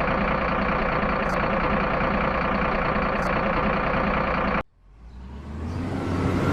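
Truck engine running steadily. It cuts off abruptly a little over four and a half seconds in, then a vehicle engine fades back in and grows louder.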